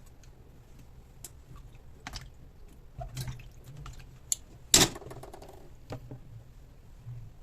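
Kitchen handling sounds during food preparation: scattered light taps and clicks, with one loud sharp knock and a brief clatter nearly five seconds in.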